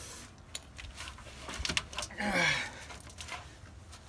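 A few faint metallic clicks and clinks of a socket and wrench being handled at a bolt, with a brief low murmur from a man's voice about two seconds in.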